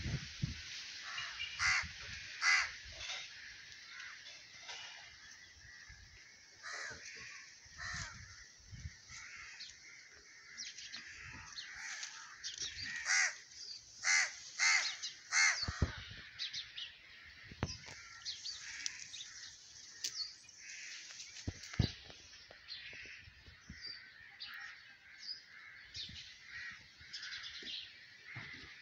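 Outdoor birds calling again and again, crow-like caws among them, over a steady high background chorus, with a loud cluster of calls about halfway through. A few low thumps come in between.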